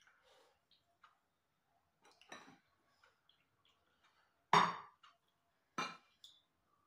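Metal spoon clinking against glass bowls and a plate while food is served: three short clinks, the loudest a little past halfway, with faint small scrapes and taps between.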